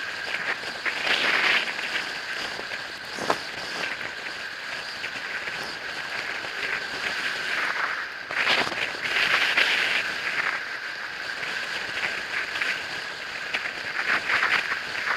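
An electric bike being ridden through a snowstorm. Its motor gives a steady high whine throughout, under swelling bursts of hiss and crackle from the tyres on snow and the storm about a second in, around eight to ten seconds in, and near the end.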